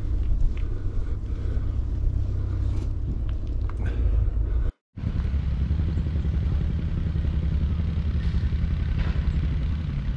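Wind rumbling on the microphone of a camera riding along on a bicycle, a steady low rumble that cuts out for a moment about halfway through.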